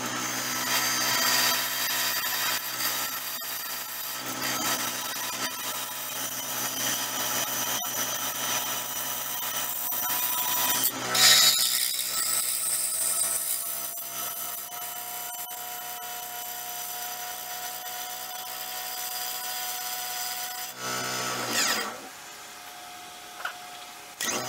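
Wood lathe spinning a cast cedar-and-epoxy-resin bowl blank while a bowl gouge cuts it: a steady motor whine under the scraping hiss of the cut. The scraping is loudest about eleven seconds in, and the whole sound gets quieter near the end.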